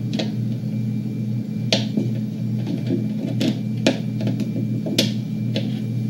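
Sharp plastic clicks and taps as the garage door opener's plastic light cover is handled and fitted back onto its housing, several scattered clicks over a steady low hum.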